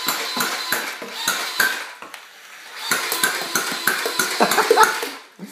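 Motorized Nerf dart machine gun on a remote-control car firing in bursts: a rapid run of sharp clacks as it shoots foam darts, which clatter onto the tile floor. There is a short lull about two seconds in, then a second, louder burst that stops shortly before the end.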